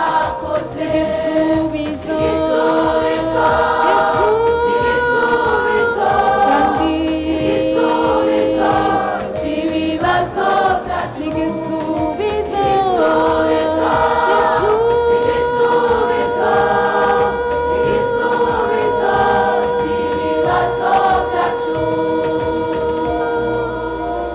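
Youth church choir singing a gospel song in harmony, with long held notes; the singing eases off near the end.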